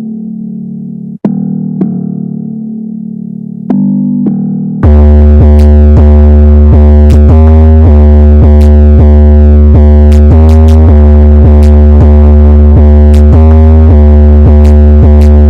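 Instrumental intro of a hip-hop track, with no vocals. Synth and keyboard chords play alone at first; about five seconds in, a heavily boosted bass and a steady drum beat come in, much louder.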